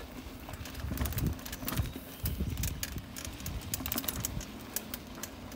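Mountain bike rolling over a dirt trail littered with dry leaves and twigs, with many irregular clicks and rattles over a low, uneven rumble.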